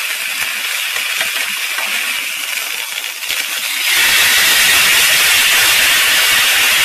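Dried pollack fillet sizzling in a hot oiled frying pan. About four seconds in, the fish is flipped onto its side coated in gochujang-honey sauce, and the sizzle turns louder and stays loud as the sauce hits the hot pan.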